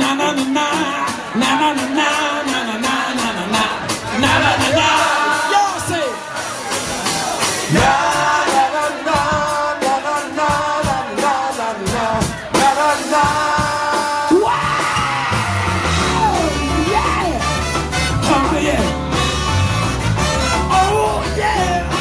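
Live soul band playing, with a man singing and shouting into the microphone over electric guitar, saxophone and drums. The deep bass drops out for the first two-thirds and comes back in strongly about fourteen seconds in.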